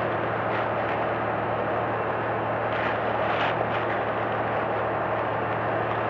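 Diesel engines of a concrete pump and the transit mixer feeding it, running steadily with a constant low hum while concrete is pumped up to an upper floor.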